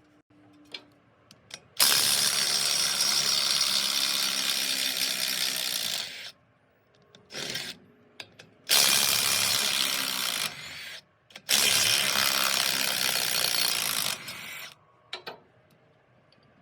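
A handheld power tool run in three bursts of a few seconds each, with short metallic clicks and knocks between the runs.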